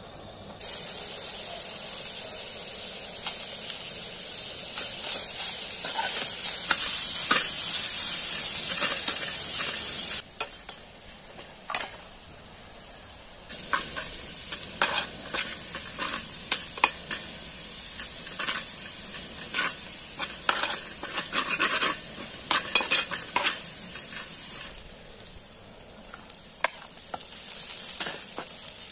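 Sliced onions sizzling in hot oil in a metal pot, a steady high hiss, while a metal spoon stirs them, clinking and scraping against the pot. The sizzle stops abruptly about a third of the way in, returns with many spoon clicks, and drops away near the end, leaving only scattered clinks.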